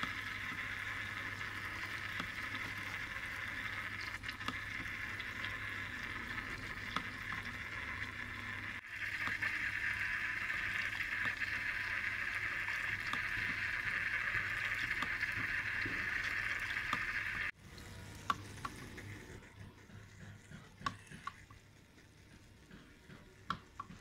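Water from a small bamboo spout fountain trickling and splashing steadily into a bamboo cup and a tray of pebbles, with a low steady hum underneath. The flow sound jumps in level at two cuts, about 9 and 17 seconds in. After the second cut it is quieter, with separate drips.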